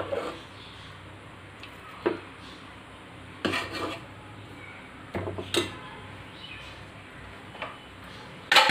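Steel ladle knocking and scraping against a stainless steel pot of cooked broken wheat: a few separate clinks and scrapes, the loudest near the end.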